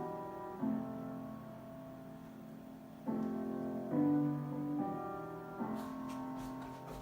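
Slow piano music: sustained chords that change every second or two, each new chord struck a little louder and then fading.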